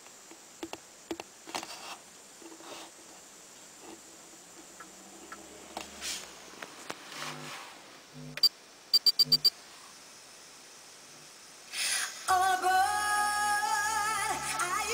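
Scattered light clicks, then six short high electronic beeps about eight to nine seconds in, the last five in quick succession. About twelve seconds in, a song with singing starts playing through the aftermarket GPS navigator's speaker as a video comes up on its screen.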